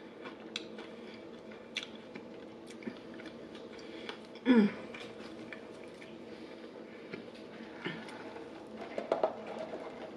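Close-miked chewing of crispy fried chicken, with wet mouth clicks and soft crunches. About halfway through comes a short hummed 'mm' that falls in pitch, and near the end a sip through a straw.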